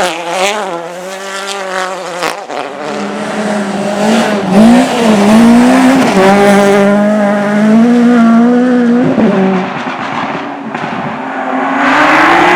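Race car engine running hard through a hill slalom course, its pitch climbing and then dropping sharply with gear changes and lifts off the throttle. Near the end a louder rush of noise comes in.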